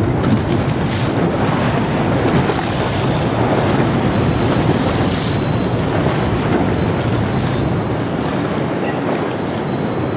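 Steady low rumble of a passenger ferry's diesel engines and churned water as the boat passes close by, with some wind on the microphone.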